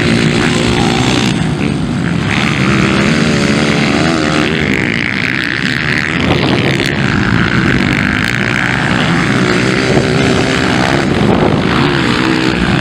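Several 230 cc motocross bikes running and revving on the track, their engine pitch rising and falling as the riders work the throttle through the corners.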